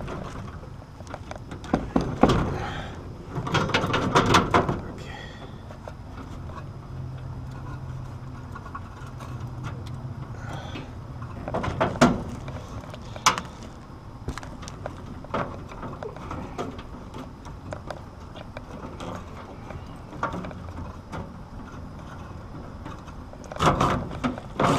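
Hand-handling noise from wiring work on an air-conditioning unit: scattered knocks, clicks and rustling as a bundle of wires is worked into place, busiest a few seconds in and again near the middle.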